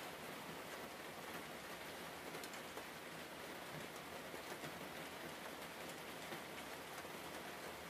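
Steady faint hiss, like light rain, with scattered faint ticks.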